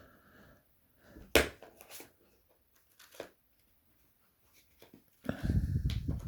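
Tools and small lock parts being handled on a workbench: a sharp click a little over a second in, a few lighter taps, then about a second of rustling clatter near the end.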